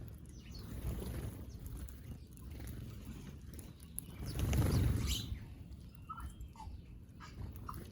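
Small birds giving a few short chirps over a low rumbling noise that swells about halfway through.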